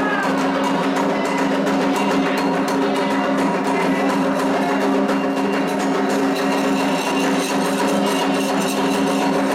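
Candomblé toque: atabaque hand drums played in a fast, steady, unbroken rhythm, with sharp clicking strokes on top.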